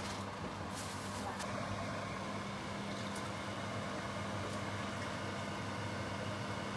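Steady low hum with an even hiss from a kitchen stovetop where a steamer pot of fish is heating on the glass-top hob. A few faint clicks come near the start.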